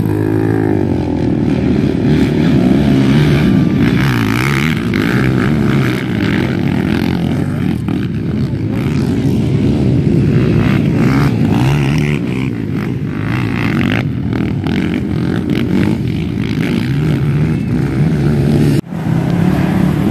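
Racing ATV (quad) engines revving hard and passing by, their pitch climbing and falling again and again as the riders accelerate and back off, with at least two quads running at once. The sound breaks off for a moment near the end.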